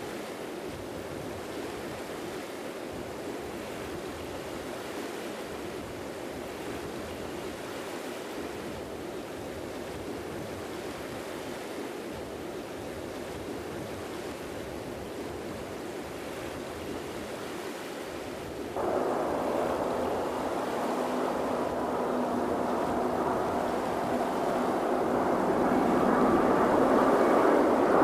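Steady wash of surf and wind. About two-thirds of the way in it cuts sharply to the rising jet roar of a Japan Airlines Airbus A350-941's Rolls-Royce Trent XWB engines, with a faint steady hum under it, growing louder toward the end.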